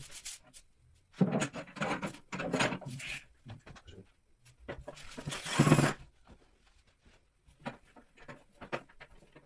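Short, unclear bursts of men's voices, low-pitched and broken into syllables, with a louder, noisier burst about halfway through; no clear words come through.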